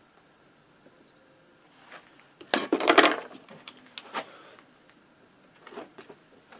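Hard objects knocking and clattering on a wooden workbench: a brief burst of clatter about two and a half seconds in, then a few single knocks.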